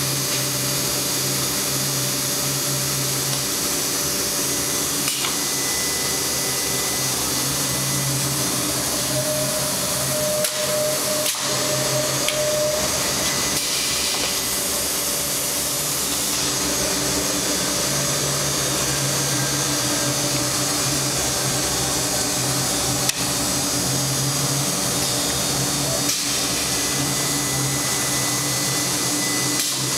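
HOMAG CNC woodworking centre running with a steady whirring hum, its tones rising and falling in strength now and then. A few sharp clicks break in over it.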